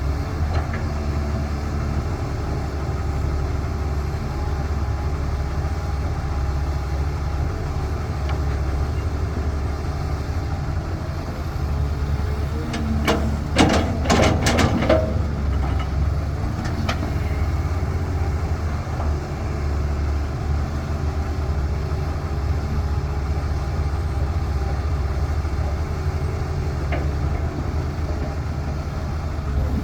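CAT 320 hydraulic excavator's diesel engine running steadily with a low drone. About halfway through comes a short burst of sharp knocks and clatter, with a few lone knocks later.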